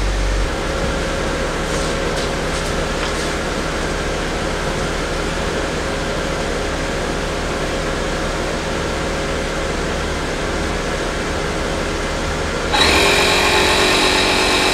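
A steady background hum with a few light handling clicks. Near the end, a ShockFlo 12-volt portable air compressor starts up and runs with a louder, steady motor whine, pumping air into a basketball through its needle.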